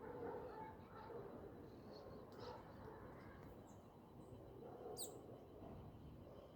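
Faint outdoor ambience with a few short, high bird chirps, the clearest a quick downward chirp about five seconds in.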